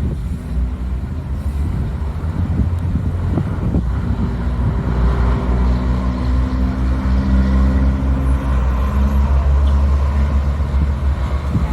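A motor vehicle's engine running with a steady low rumble, growing gradually louder over several seconds.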